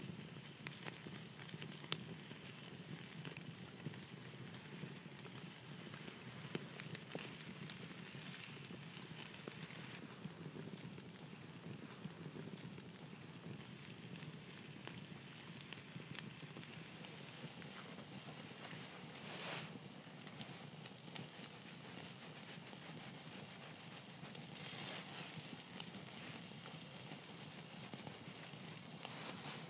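Bacon sizzling on a wire grill over a wood campfire, with the fire crackling in small pops throughout and a few short louder hisses.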